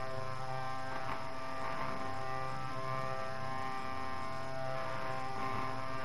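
Slow, droning music played from a cassette tape: a sustained, hum-like chord with soft swells about a second in and again near the end, over steady tape hiss.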